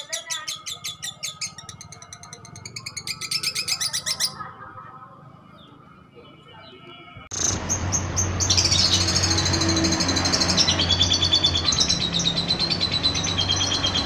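Juvenile lovebird chattering in the rapid, drawn-out 'ngekek' song of a bird in full voice: fast repeated high notes that stop about four seconds in, then after a short lull a louder, longer run of rapid trilled notes from about seven seconds, over a low steady hum.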